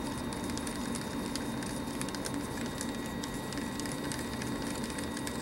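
Faint, irregular ticking and scraping of a stir stick against the inside of a small paper cup as two-part urethane resin is hand-mixed, under a steady faint hum.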